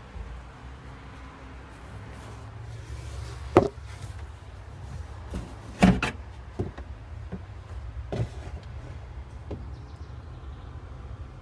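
An engine running with a steady low hum, with a handful of sharp, irregularly spaced clicks and knocks over it, the loudest about three and a half and six seconds in.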